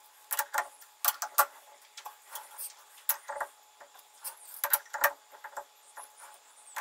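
The four-jaw chuck of a manual Colchester metal lathe being turned and handled by hand, giving irregular light metallic clicks and knocks.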